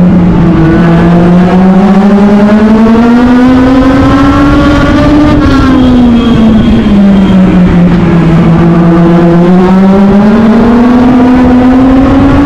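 Legend race car's Yamaha four-cylinder motorcycle engine, heard onboard at racing speed. The engine note drops as the driver lifts for a turn, climbs as he accelerates down the straight, drops again for the next turn about eight seconds in, then climbs again near the end.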